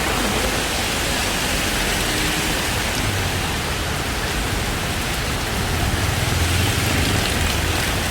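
Heavy rain pouring steadily, an even loud hiss. A low rumble comes in about three seconds in and swells past the six-second mark.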